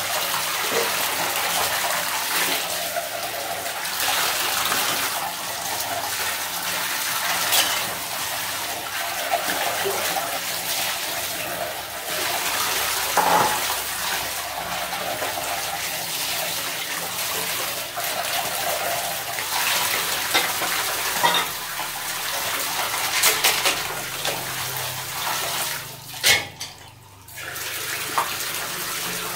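Water running and sloshing in a large plastic basin as rice is rinsed by hand, with a few sharp knocks of a plastic scoop against the basin. The water sound breaks off briefly near the end, then carries on.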